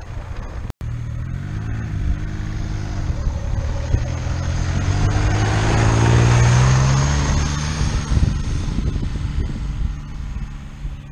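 Diesel motorcycle powered by a VW Lupo 3L's 1.2-litre three-cylinder turbodiesel riding past. The engine note grows louder to a peak about six seconds in, then fades as the bike moves away.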